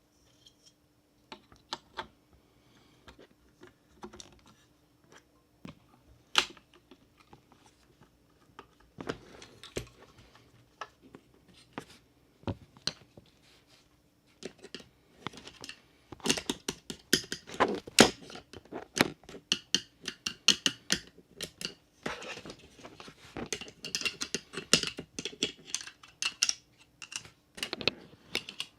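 Small clicks, taps and light rattles of diecast and plastic model-car parts being handled and fitted together, sparse at first and becoming busy about halfway through.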